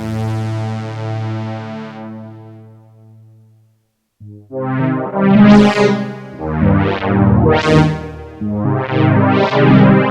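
Roland Boutique JX-08 polyphonic synthesizer playing a held chord whose brightness and volume die away over about four seconds. After a brief silence a new sound plays a run of chords, each one opening bright and closing down again.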